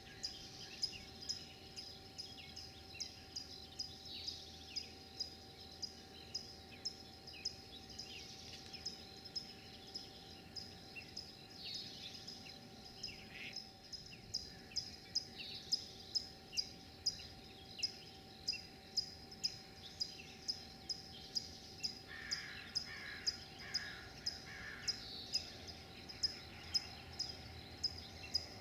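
Pre-dawn outdoor ambience: a short high chirp repeats steadily about twice a second, with songbirds calling and singing intermittently behind it.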